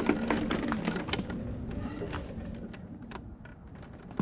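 Sticks and twigs cracking and snapping under the wheels of an electric mobility buggy, over the steady hum of its motor; the cracking and the hum thin out over the last couple of seconds.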